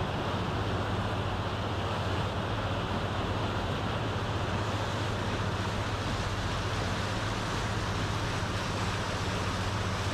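Steady drone of a river boat's engine heard from on board, under a constant rush of wind and water noise.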